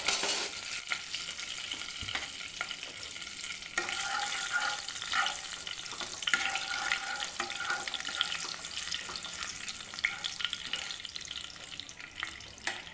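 Whole spices (bay leaves, cardamom and cloves) sizzling and crackling in hot oil in a kadai: the spice tempering at the start of a curry.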